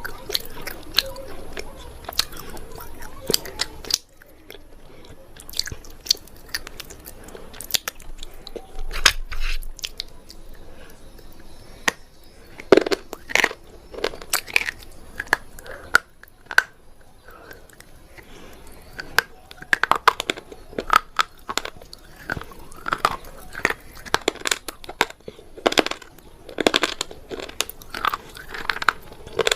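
Close-up dry crunching and chewing: someone biting into and eating something hard and brittle, with many irregular sharp crunches. It is eaten dry, without being soaked in water, which gives a dry crunch.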